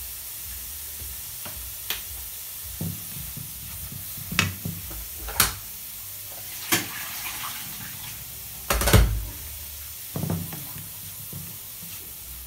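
Chicken livers and chopped garlic sizzling in a hot frying pan, with a steady hiss. A plastic spatula knocks and scrapes against the pan every second or two as they are stirred, loudest about nine seconds in.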